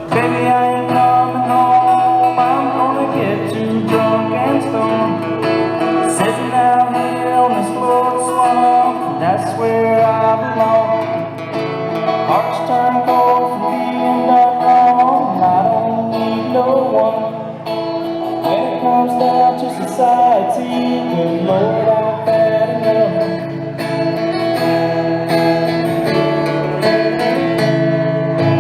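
Live country music played at full level, with acoustic guitar prominent and the chords changing every few seconds.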